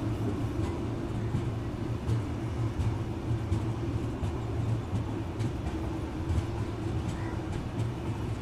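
Passenger train rolling slowly out of a station, heard at an open coach door: a steady low drone with irregular clicks and clacks from the wheels on the track.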